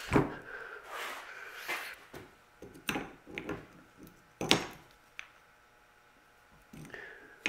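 Clicks and knocks of an Empi disc brake caliper and its brake pads being handled as a pad is worked into its slot. A handful of separate sharp knocks come over the first five seconds, the loudest about four and a half seconds in.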